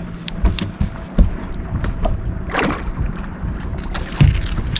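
Irregular knocks and clatter of gear and handling in a fishing boat over a steady low rumble.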